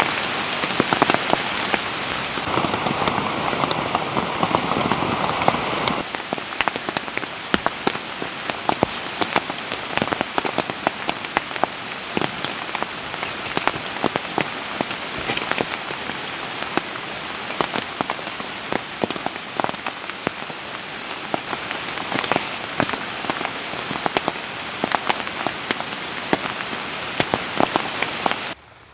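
Steady rain with many individual drops ticking sharply close by. The sound changes abruptly about six seconds in and cuts off suddenly just before the end.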